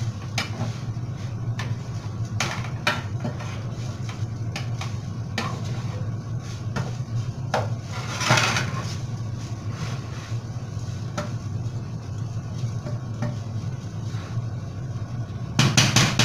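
Wooden spoon stirring and scraping pilaf around a frying pan on a gas stove, with scattered knocks of the spoon against the pan and a longer scrape about eight seconds in. Near the end the spoon is knocked on the pan several times, louder. A steady low hum runs underneath.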